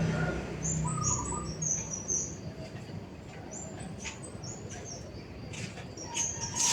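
Several songbirds chirping together in a morning chorus: many quick, high chirps repeated throughout, with some lower calls over a low rumble in the first second and a half. A few brief rustles come near the end.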